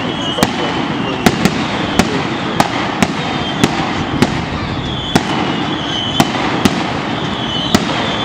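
Aerial fireworks going off: a steady run of sharp bangs, about one to two a second, over a continuous hiss and crackle.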